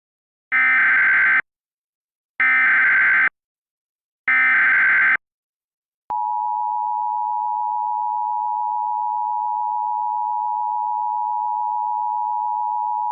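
Emergency Alert System alert opening: three short screeching data bursts of the SAME header, each just under a second and about two seconds apart, then the steady two-tone EAS attention signal starting about six seconds in and holding.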